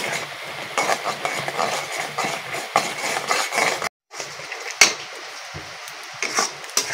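Metal spatula scraping and clinking against a metal kadai, stirring a thick, grainy coconut-and-milk mixture in quick repeated strokes. The sound cuts out for a moment about four seconds in.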